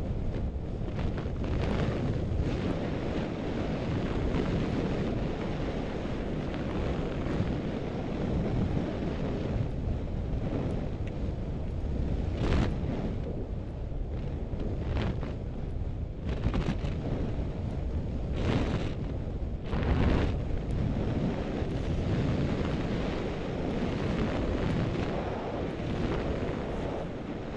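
Wind buffeting an action camera's microphone as a skier runs downhill, a steady rumble. Several brief louder scrapes of skis on packed snow come through past the middle.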